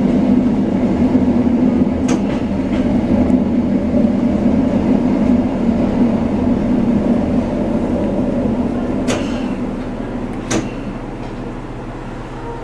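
Diesel railcar's engine running steadily under power as the train pulls away from a station, heard inside the car; the engine note drops away about nine seconds in. A few sharp clicks from the wheels and rails come through, one about two seconds in and two more near the end.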